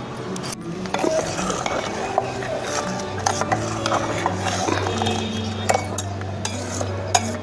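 Steel spoon stirring rice cooking in a steel pot, with light clinks and scrapes of metal on metal, over background music.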